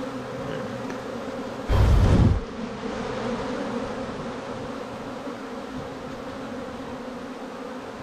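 Steady hum of a mass of honeybees buzzing around an opened hive and a frame crowded with bees. About two seconds in, a brief, loud rush of low noise lasting under a second cuts across it.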